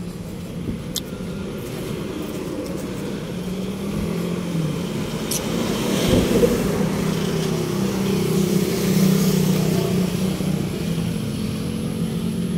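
A motor vehicle engine running close by, with road traffic noise, getting louder around the middle.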